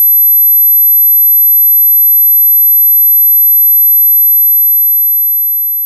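A single steady 12 kHz sine tone, very high-pitched, played as a tinnitus-masking tone. It begins fading out about four seconds in.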